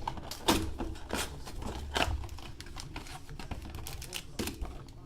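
Trading cards being handled: irregular sharp clicks and taps of card stock, the strongest about half a second in and at about two seconds.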